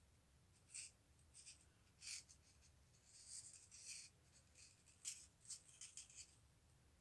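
Faint, irregular scratchy rustles and ticks of thin beading wire and bugle beads being twisted and pulled between the fingers while winding the arcs of a beaded leaf.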